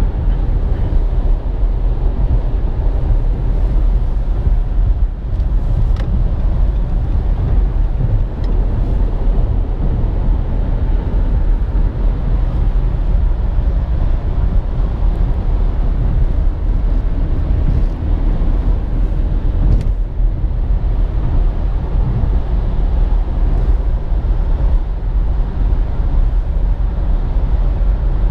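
Steady low rumble of a 2017 Nissan Rogue running, with no change in pitch.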